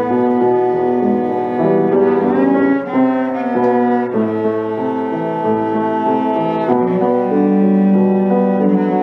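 Cello and piano playing a classical cello sonata, the cello holding long bowed notes that change every second or so over the piano.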